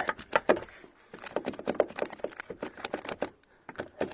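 A bar of hard soap rubbed in short, repeated strokes over a car door's check strap, a quick run of scratchy scrapes and taps: soap being applied as a lubricant to stop the strap squeaking.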